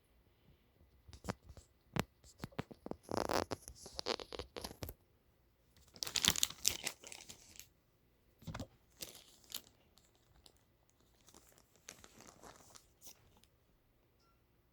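Rustling and crinkling of a laundry pile in irregular bursts, with many small clicks, and a single short low thump a little past the middle.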